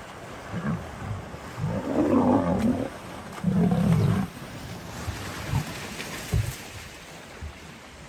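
Two deep, harsh animal roars, about two and three and a half seconds in, over the splashing of a hippo chasing a lion through shallow water, with low thuds later on.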